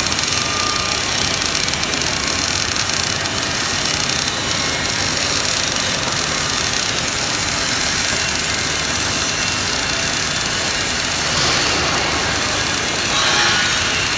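MIG (GMAW) welding arc running steadily, a continuous crackling hiss of the wire burning in.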